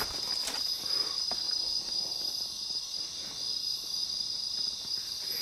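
Steady chorus of insects, an unbroken high-pitched trill, with a couple of faint clicks in the first second or so.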